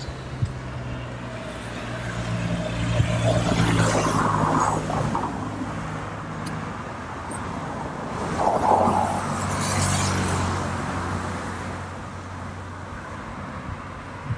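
Road traffic: a steady engine hum, with vehicles swelling past twice, a few seconds in and again about eight to ten seconds in.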